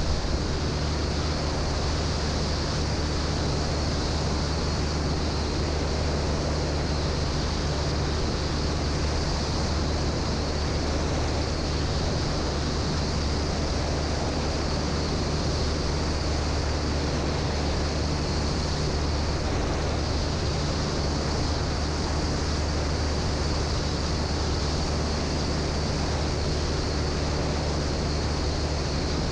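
1946 Piper J-3 Cub's air-cooled flat-four engine running steadily in cruise flight, with a low, even hum under a constant rush of wind and propeller wash over a microphone on the wing strut.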